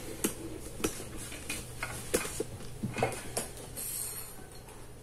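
A string of irregular light clicks and taps, about seven, over a low steady hum, with a brief soft hiss about four seconds in.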